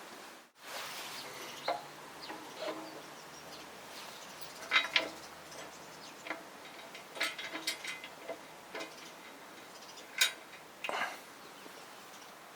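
Irregular light clicks and metallic clinks of hand work on metal parts, with a few louder knocks.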